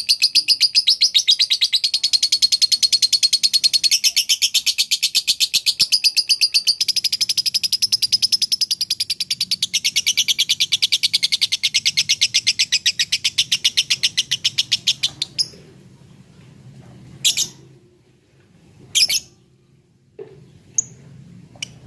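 Lovebird giving a long, rapid chattering trill of high chirps, about ten a second, in the semi-konslet style, which stops suddenly after about fifteen seconds; a few short single calls follow.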